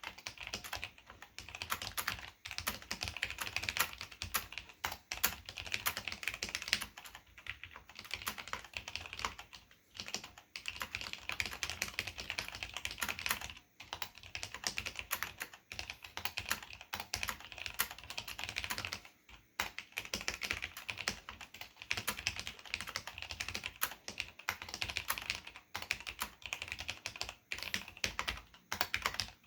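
Typing on a mechanical keyboard with Cherry MX Black linear switches and ABS keycaps: fast, continuous key clacks with brief pauses, including around 10, 14 and 19 seconds in.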